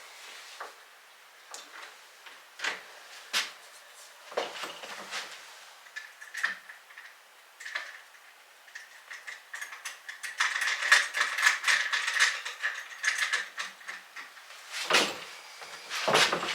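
Screwdriver and metal door-lever hardware clicking as screws are driven to fasten the lever set together: scattered small clicks, then a dense run of rapid clicking about ten seconds in. Two louder knocks come near the end.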